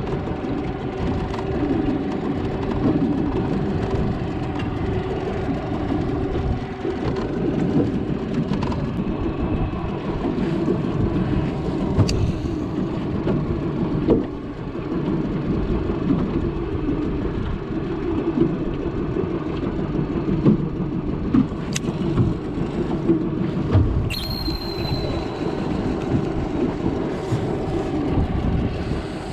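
An engine running steadily at a constant speed, with a few faint clicks.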